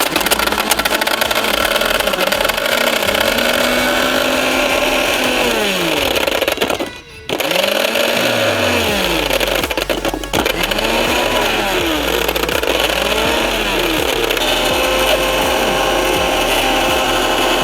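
Electric mixer grinder running at full speed with a Jio keypad phone inside its lidded jar, loud and steady. It cuts out for about a second, around seven seconds in, then starts running again.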